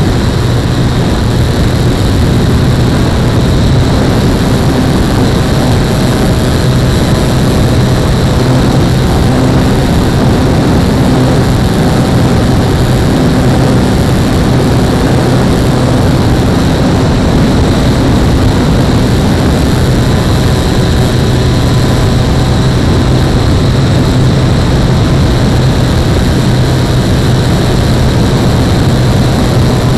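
Steady, loud rush of wind and propeller-motor hum from a radio-controlled SR22 model airplane in flight, picked up by the camera's microphone on board the plane.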